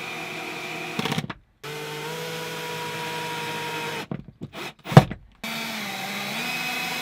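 Cordless drill driving self-tapping screws into a campervan roof panel: the motor whines steadily in three bursts of about two seconds each. Between the second and third bursts come a few clicks and one sharp knock, and the pitch dips slightly partway through the last burst as the screw tightens.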